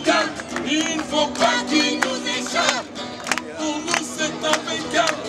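A song performed with several voices singing together over music, with sharp percussive hits.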